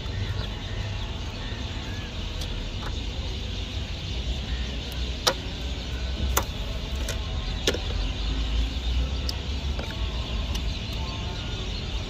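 A few sharp clicks and knocks as a hand works a small plastic electrical connector loose in a car's engine bay, over a steady low background rumble.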